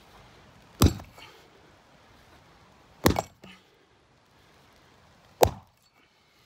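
An axe chopping old, weathered timber: three sharp blows about two seconds apart, the first two each followed by a lighter knock.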